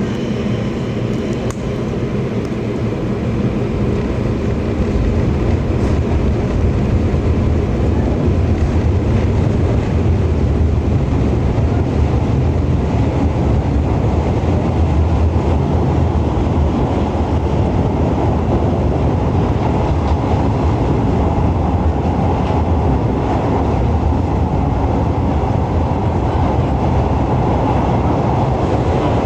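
Electric commuter train on the Chikuhi Line heard from inside a carriage, running between stations with a steady rumble of wheels and running gear. The noise builds over the first few seconds, then holds steady.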